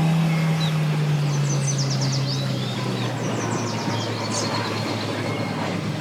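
A motor running with a steady low hum that fades away about halfway through, over a constant rush of wind, while birds chirp in quick high bursts in the middle.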